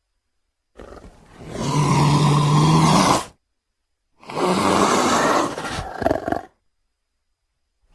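Two roaring animal calls, a sound effect mixed from leopard and wolf recordings. The first starts faintly about a second in and swells into a steady roar; the second starts past the four-second mark and breaks into short ragged pulses before stopping abruptly. There is dead silence between and around them.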